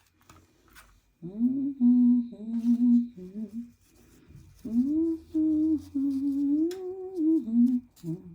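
A woman humming the tune of a worship song in two wordless melodic phrases, with a couple of faint clicks.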